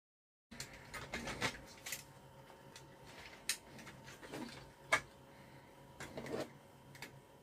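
Small clicks and rustling from parts and tools being handled on a workbench, over a faint steady whine. The two sharpest clicks come about halfway through.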